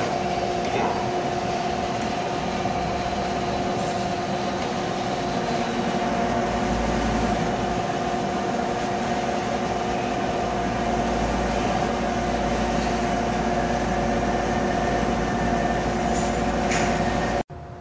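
Automatic pellet fireplace's motor-driven feed and fan system running: a steady mechanical hum with a constant whine over it. It cuts off abruptly near the end.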